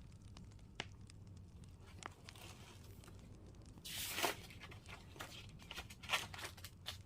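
Hands working in a kitchen: scattered light clicks and taps, with a short rustle about four seconds in and another about six seconds in, like packaging being handled or torn.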